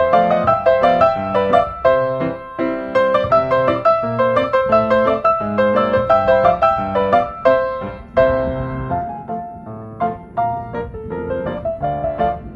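Background music: solo piano playing a lively run of notes.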